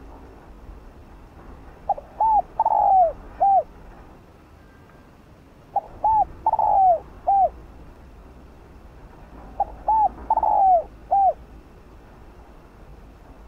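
Spotted dove cooing its song: a decoy bird's call. Three phrases come about four seconds apart, each a quick run of short coos with one longer, rougher coo just before the last note.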